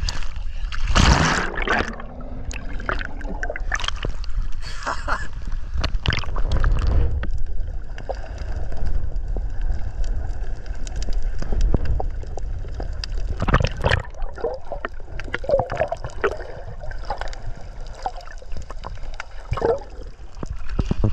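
Sea water sloshing, gurgling and bubbling around an action camera dipping in and out of the surface. There is a loud splash about a second in as someone jumps into the sea from a catamaran.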